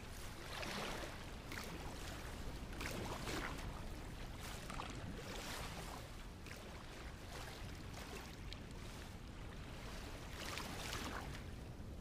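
Faint beach ambience: surf washing in soft swells every second or two, over a steady low rumble of wind on the microphone.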